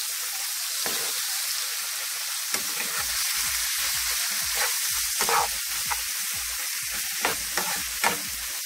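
Saltfish, onions, tomatoes and sweet peppers sizzling in oil in a wide pan: a steady frying hiss, broken by a few short, sharper crackles or clicks in the second half.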